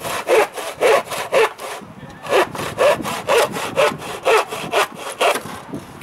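Hand saw cutting through a wooden plank in regular back-and-forth strokes, about two a second, with a short pause about two seconds in. The sawing stops shortly before the end.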